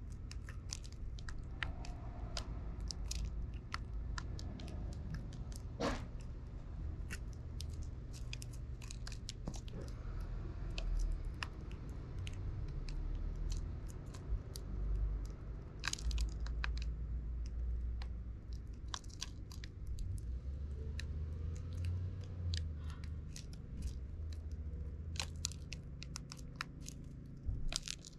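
Eurasian tree sparrows pecking seed from plastic feeding trays: irregular sharp ticks of beaks striking the tray and cracking seeds, over a low rumble.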